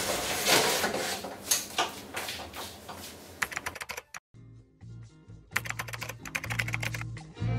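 Quick computer-keyboard typing clicks in two short runs, about three and a half seconds in and again near the end, over background music with a low bass line.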